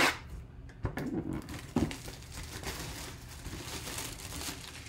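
Plastic shrink wrap crinkling and tearing as it is stripped off a sealed cardboard box, with a few knocks of the box being handled and a loud knock at the end.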